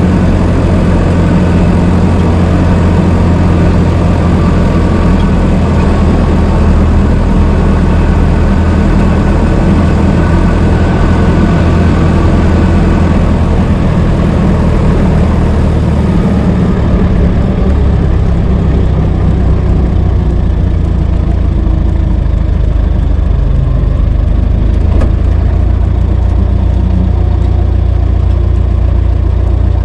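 1926 Ford Model T's four-cylinder side-valve engine running as the car is driven, a steady low drone whose note shifts a little past halfway.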